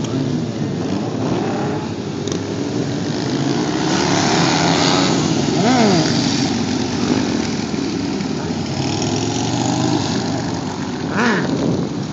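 Several motorcycle engines running and revving, their pitch rising and falling as the bikes are ridden. One sharp rev up and straight back down comes about six seconds in, and another near the end.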